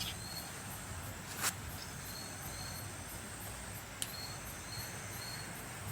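Insects chirping in short, repeated calls with a steady high whine over a faint, even outdoor hiss. Two sharp clicks stand out, one about a second and a half in and another near four seconds.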